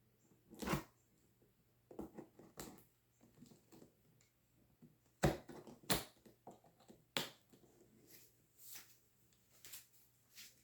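Cardboard laptop box and its packaging being handled and opened: irregular scrapes, taps and rustles, the sharpest about five seconds in.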